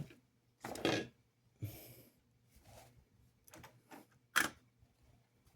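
Scattered small clicks and rustles of small screws and plastic model-locomotive parts being handled on a workbench, with one sharper click near the end.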